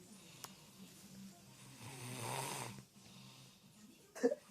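A man in deep sleep snoring: one long snore about two seconds in, with quieter breathing between snores and a brief louder sound near the end.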